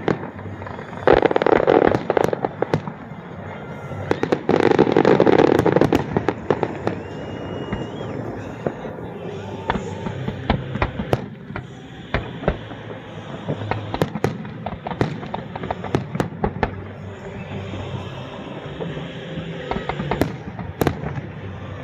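Aerial fireworks display: two dense salvos of booms and crackle about a second in and around five seconds in, then a steady run of sharp bangs and cracks.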